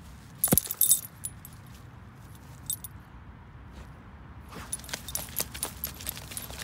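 A dog digging with its front paws in dry grass and loose dirt, with its metal ID tag and leash clip jingling against each other at the quick scratching strokes. The loudest jingle comes about half a second in, and a quick run of scratches and jingles follows from about four and a half seconds.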